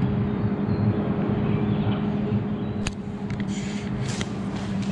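Steady mechanical hum holding two constant tones over a low rumble, with a couple of light clicks about three and four seconds in.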